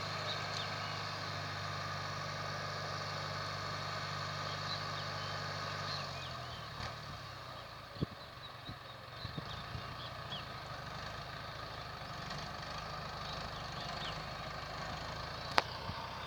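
Valmet 85id tractor's diesel engine running steadily with a rotary mower hitched on. About six seconds in the steady engine note breaks up and drops in level. Later there is a sharp click or knock, twice.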